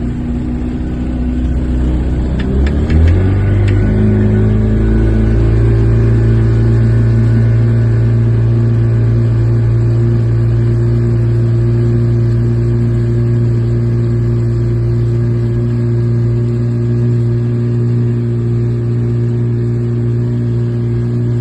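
1978 Evinrude 35 hp two-stroke outboard motor opened up: the revs rise over a couple of seconds, then it runs steadily at high throttle under way.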